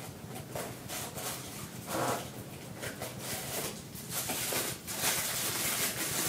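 Packaging rubbing and scraping in irregular strokes as statue heads are pulled out of it by hand.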